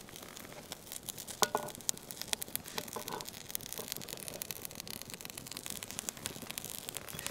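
Wood campfire crackling, with many sharp irregular pops and snaps. Two brief squeaky tones come about one and a half and three seconds in.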